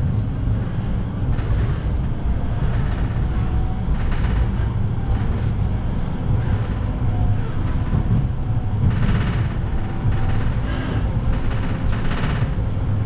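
Vityaz-M low-floor tram running along the line, heard from inside the passenger cabin: a steady low rumble with short bursts of wheel-and-rail clatter now and then, the loudest near the end.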